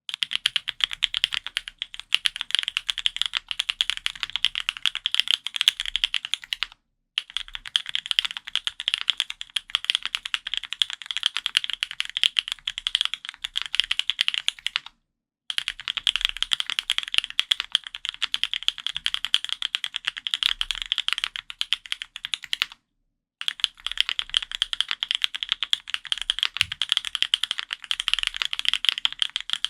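Fast typing on an F1-8X custom mechanical keyboard fitted with Gateron Luciola switches: a dense, continuous run of keystroke clacks. It comes in four long stretches broken by three brief silences.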